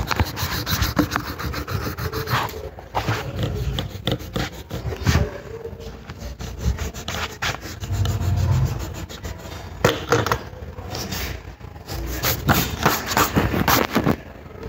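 Rubbing and scratching on paper over a drawing board, in short uneven strokes.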